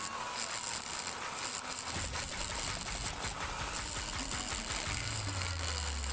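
Small handheld rotary grinder running at high speed with a high-pitched whine, its burr rasping unevenly as it grinds the aluminium port of a Yamaha Jupiter Z cylinder head during porting. A low steady hum comes in near the end.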